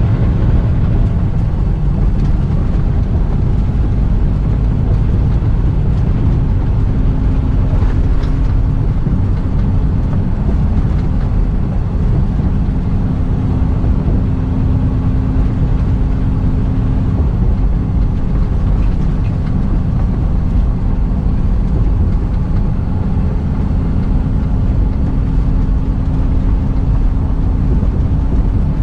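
Semi-truck running down the road, heard from inside the cab: a steady engine drone and road noise with a constant low hum.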